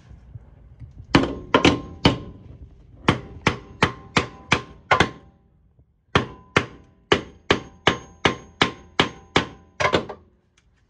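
Repeated hammer blows on the top of a 3-inch-lift coilover strut assembly, driving its upper mount up into the strut-tower holes it is too tall to slip into. The blows come about two to three a second in two runs, with a short pause near the middle. Each blow has a brief metallic ring.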